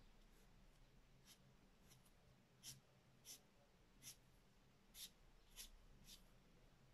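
Felt-tip marker drawing short strokes on paper: about seven quick, faint swishes, spaced half a second to a second apart.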